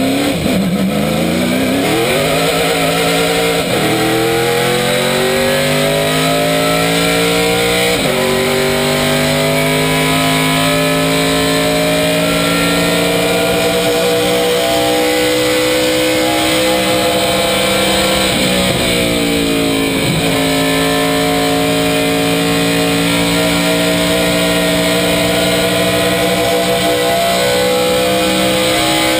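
Race car's V8 engine running hard, heard from inside the cockpit. Its pitch climbs and drops sharply about four and about eight seconds in, then holds high, sags about nineteen seconds in, and climbs back up.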